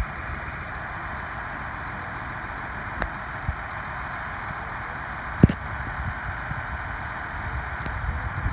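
Heavy farm machinery engine running steadily at harvest work, with a few sharp knocks, the loudest about halfway through.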